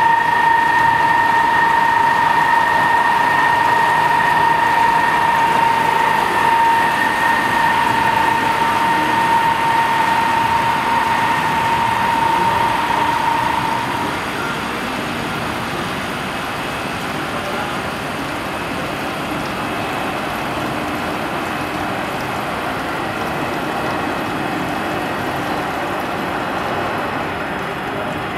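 FERMAT WRF 150 CNC horizontal boring machine deep-drilling steel with an indexable-insert U-drill, coolant spraying at the cut: a steady hissing machining noise with a high steady whine over it that stops about halfway through, after which the cutting noise goes on a little quieter.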